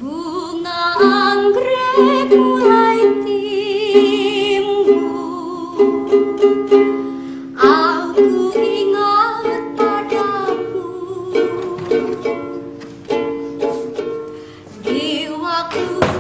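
Violin playing a slow melody with vibrato over a plucked-string accompaniment.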